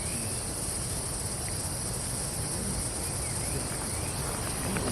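Steady, high-pitched chorus of insects, crickets or similar, droning without a break, with a few faint short chirps over it.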